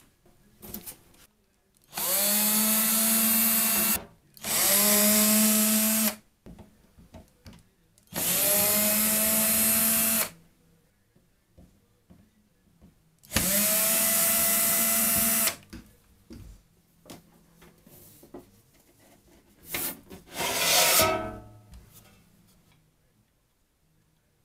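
Cordless electric screwdriver whirring in four runs of about two seconds each, each starting with a quick rise in pitch as the motor spins up, as it backs out the screws of the rework station's sheet-metal cover. A short louder scrape comes near the end.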